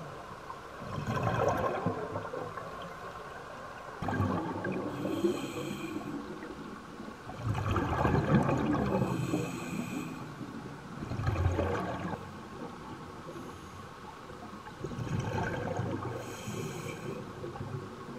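Scuba diver breathing through a regulator underwater. About five breaths come a few seconds apart, each a burst of rumbling exhaled bubbles, with the hiss of inhalation through the regulator between some of them.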